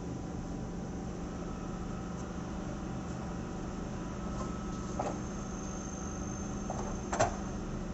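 Allegro 2 reformer carriage rolling along its aluminium frame on its wheels, over a steady low hum. There is a light knock about five seconds in and a sharper, louder knock about seven seconds in.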